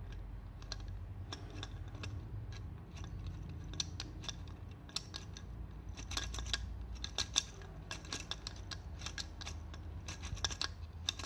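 Plastic Lego Technic gears and pistons of an 858 Auto Engines model being turned by hand: a rapid, irregular clicking and rattling of gear teeth and loose parts, busier from about five seconds in.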